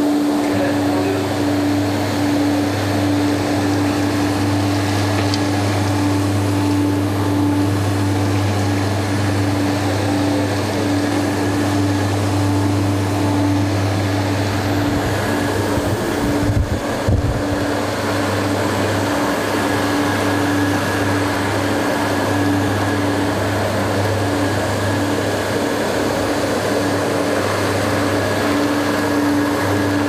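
Cleanvac RL600 rotating-brush carpet vacuum sweeper, with twin vacuum motors and a brush motor, running steadily: an even motor whir over a low hum. A brief low rumble comes a little past halfway.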